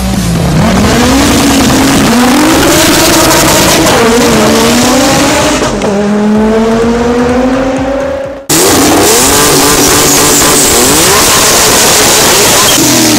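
Two drag cars launching and running at full throttle down the strip, their engines rising in pitch and dropping back at each gear change. After a sudden cut about eight seconds in, a loud race car engine at high revs with tyre squeal.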